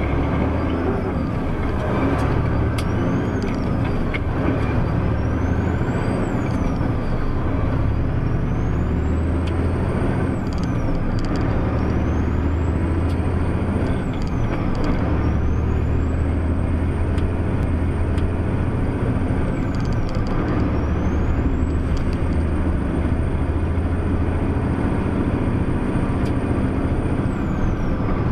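Heavy truck engine running steadily, heard from inside the cab, with a high whine that climbs in pitch and drops back several times, the last time holding high for about five seconds.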